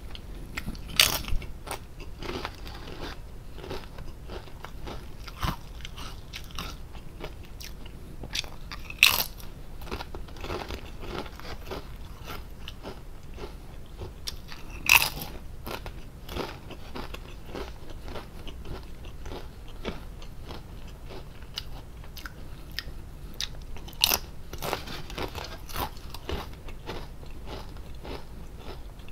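Close-miked crunching of Lay's potato chips being eaten: a handful of loud, crisp bites spread through, with quieter crunchy chewing between them.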